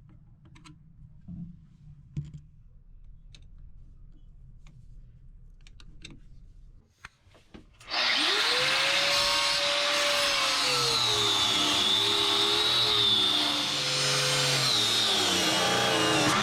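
A few faint clicks and taps of hand tools, then about eight seconds in a power drill starts and runs loudly at varying speed, its motor pitch rising and then wavering up and down.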